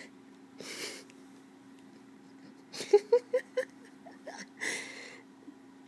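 Part-Siamese cat licking yogurt from inside a plastic yogurt tub: a run of quick, wet clicks about three seconds in, with soft breathy puffs before and after. A steady low hum sits underneath.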